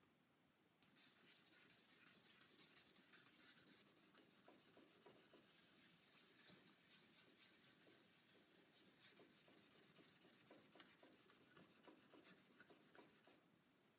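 Faint hand wet-sanding: fine-grit wet sandpaper, likely 2000 grit, rubbed in short strokes over the cured waterborne lacquer finish of a guitar body. The rubbing starts about a second in and stops shortly before the end.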